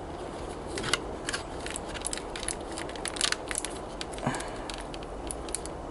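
Clear plastic blister packaging crinkling and clicking as it is handled, in scattered irregular crackles over a low steady hum.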